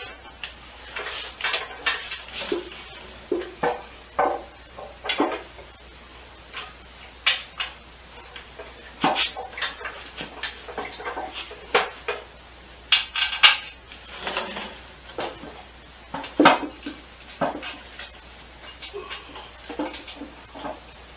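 Irregular metal clanks, clinks and short scrapes as a Chrysler 727 automatic transmission on a jack is wiggled and pushed into line with the bellhousing dowels of a Mopar 360 engine.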